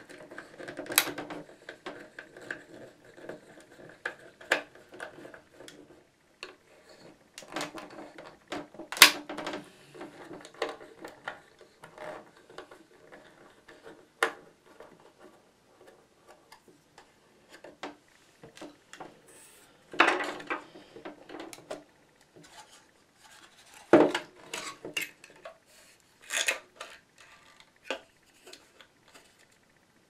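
A desktop waterfall's plastic housing being taken apart with a small screwdriver: scattered clicks, scrapes and knocks of plastic and metal against a wooden tabletop, with a few sharper knocks standing out.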